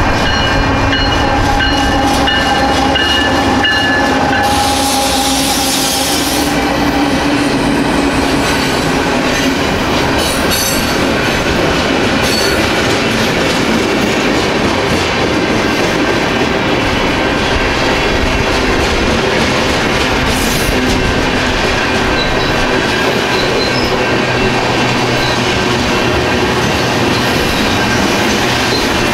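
BNSF manifest freight train passing close by. The locomotives go by at the start, with a short hiss about five seconds in. Then the freight cars roll past with steady wheel-on-rail noise.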